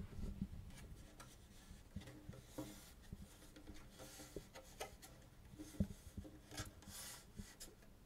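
Quiet handling noise from a 16-inch elk-hide frame drum with a maple frame being turned over in the hands: skin rubbing and swishing on the hide and rim, with scattered light knocks, the sharpest about six seconds in. The drum is not being played.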